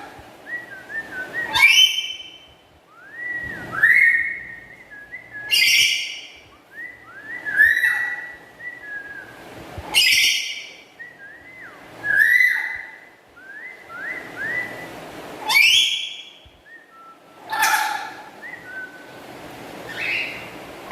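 Black-capped lory calling: loud harsh screeches about every two seconds, with short rising whistles in between.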